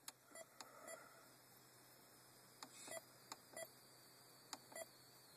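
Near silence between songs on a car stereo, broken by about eight faint, short beeps scattered through the pause.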